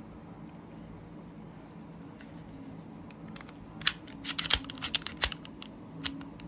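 Sharp clicks and clacks from handling a Smith & Wesson M&P 2.0 subcompact pistol: a quick run of them about four seconds in, then one more near the end, over faint room hum.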